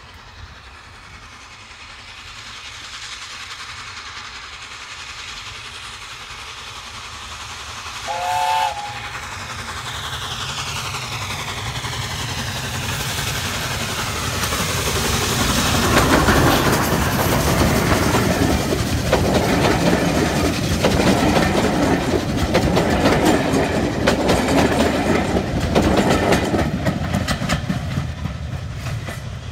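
LNER Peppercorn A1 Pacific steam locomotive 60163 Tornado approaching with a train of coaches. Its whistle gives one short blast about eight seconds in. The train's noise then builds to its loudest about halfway through as the engine passes close by, followed by the steady rumble and clatter of the coaches going past, easing slightly near the end.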